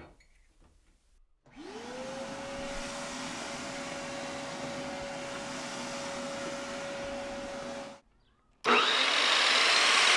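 A shop vacuum switches on about a second and a half in, its motor whine rising quickly to a steady pitch, and runs steadily while its hose clears chips from the miter saw table. It cuts off at about 8 seconds, and after a short silence a louder, steady machine noise starts abruptly: an Evolution Rage 2 chop saw running.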